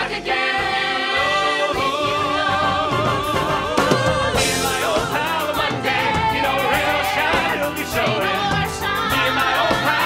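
Musical theatre cast singing a show tune with instrumental accompaniment, several voices together holding long notes with vibrato.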